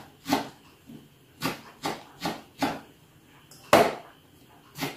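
A kitchen knife chopping food on a wooden cutting board: about eight sharp knocks of the blade against the board, unevenly spaced, the loudest a little before four seconds in.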